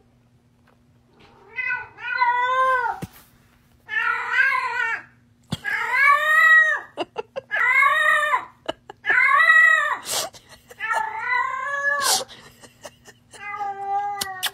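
Tabby cat meowing over and over: about seven long, drawn-out calls, each roughly a second, rising then falling in pitch. A couple of sharp clicks fall in the second half.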